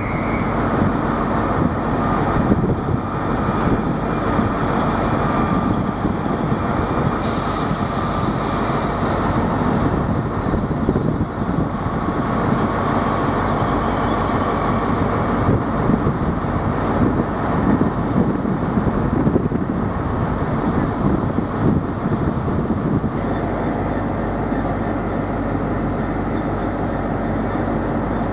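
GB Railfreight Class 66 diesel locomotive, with its two-stroke V12 engine, idling steadily at the head of a standing train of hopper wagons. A hiss of air starts about seven seconds in and lasts a few seconds.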